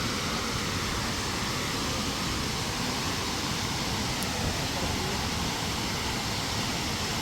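Steady rush of a large waterfall, water pouring at high flow.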